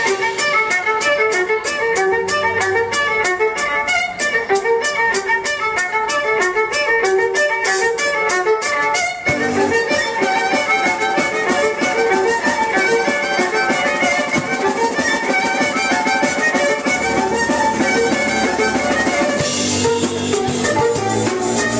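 A live street trio playing electronic-rock: an amplified violin carries the melody over drums and keyboard. The drums keep a fast, even beat until about halfway through, when the arrangement shifts to a denser texture.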